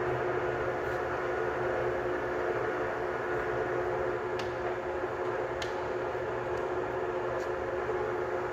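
Emco Maier Maximat V13 lathe with a 3 hp motor running steadily, a constant machine hum with several steady tones. A couple of light clicks a little past the middle.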